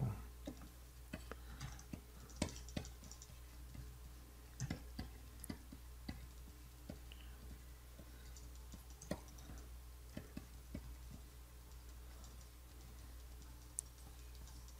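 Irregular clicks and taps from working a computer's keyboard and input pen or mouse, a few strokes a second at most, over a steady low hum.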